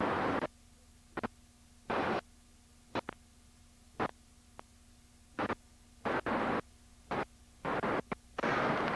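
Harsh bursts of static on a faulty camcorder audio track, cutting in and out abruptly about a dozen times at irregular intervals over a steady low electrical hum.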